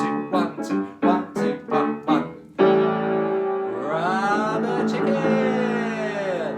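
Piano played in quick, short rhythmic chords, then a loud held chord struck about two and a half seconds in and left ringing, with a voice sliding up and then down in pitch over it.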